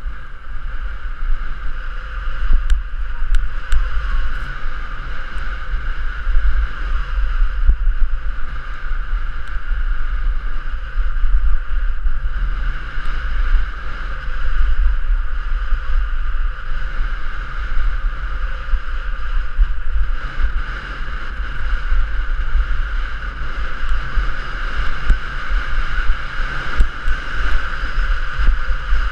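Wind buffeting the microphone of a camera carried at skiing speed, a heavy fluttering rumble, over a steady hiss of skis sliding on groomed snow.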